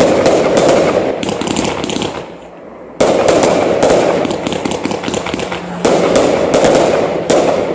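Aerial fireworks going off: a sudden loud shot right at the start and three more about three, six and seven seconds in, each followed by a dense stream of small crackles as the bursts spread.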